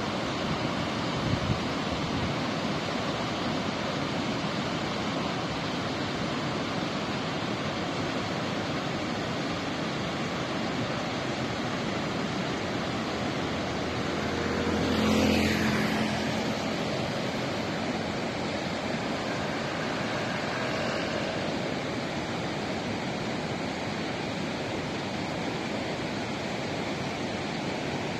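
Steady rushing roar of a fast mountain river running in whitewater rapids. About halfway through, a vehicle passes on the road, swelling and then falling in pitch as it goes by.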